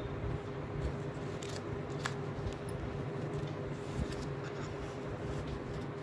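Scattered small clicks and light scraping from a crochet hook and yarn working against a hard plastic toy bird, over a steady background hum.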